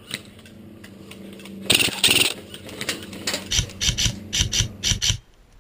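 A loud rustling scrape about two seconds in, then quick footfalls, roughly five a second: someone running over dry twigs and leaf litter with a head-mounted camera, the thuds and rustles coming through the mount. The run stops abruptly near the end.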